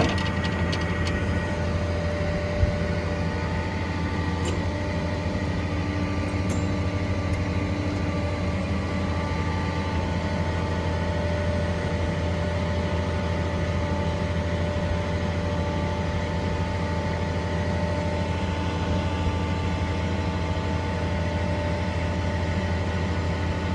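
A 6.0 Power Stroke V8 diesel running steadily with the PTO engaged, with a steady whine of several tones over the engine note that shifts slightly about ten seconds in. A single short click about two and a half seconds in.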